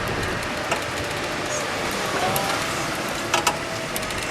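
Golf cart running as it carries the group, a steady hum with a faint even tone and a couple of sharp clicks about three and a half seconds in.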